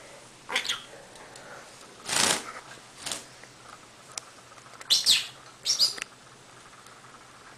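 Green-cheeked conure giving a few short chitters, the clearest two chirps near the end, with a brief rustle of its wet wings flapping about two seconds in.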